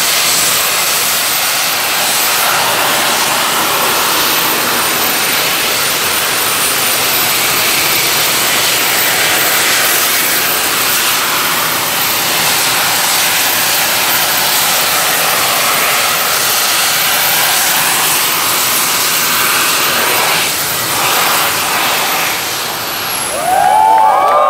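Jet suit's small arm- and back-mounted jet turbines running as the pilot hovers: a loud, steady rushing jet noise with a thin high whine. Near the end the whine falls as the engines spool down, and the crowd shouts and cheers.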